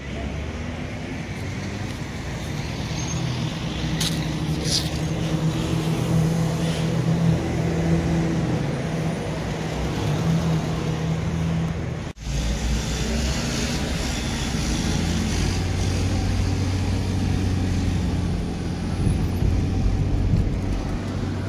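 A car driving: steady engine drone with road noise, briefly cutting out about twelve seconds in.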